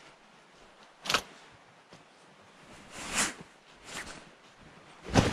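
Camping gear being dropped off and set down: a few separate knocks and rustles, a sharp one about a second in, a longer rustle around three seconds in, and another sharp knock near the end.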